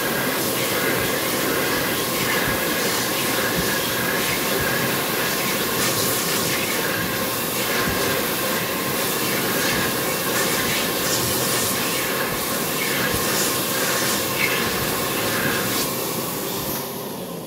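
AIKE hands-in blade hand dryer running at full power, a steady rush of air with a high whine, while hands are held in its slot. Near the end the hands come out and it begins to wind down.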